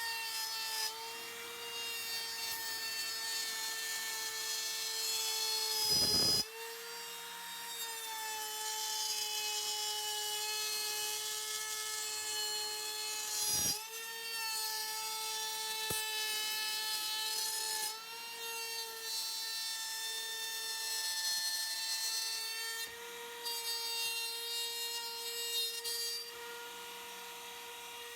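Milwaukee cordless trim router running at high speed with a steady high whine, its bit cutting birch plywood as it is guided around a square jig to trim the door openings to the line. The pitch dips briefly twice, and the router winds down at the end.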